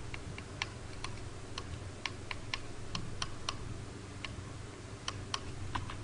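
Computer keyboard keys pressed in an irregular string of sharp clicks, a few each second, over a faint steady low hum, as the frames of an animation are flipped back and forth.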